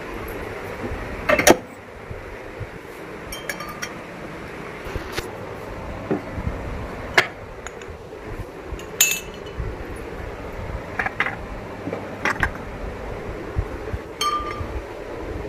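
Glasses and dishes clinking and knocking as they are picked up and set down on shelves: about a dozen separate knocks, the loudest a sharp clink about a second and a half in, some leaving a brief ring.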